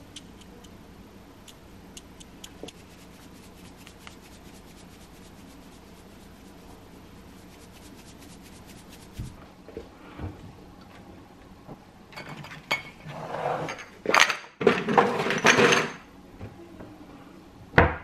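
Faint, scattered crackling of salmon and prawns frying in a non-stick pan. Later come louder rubbing and brushing noises from a hand on a glossy kitchen cabinet door, and a sharp click near the end as the door is pushed open.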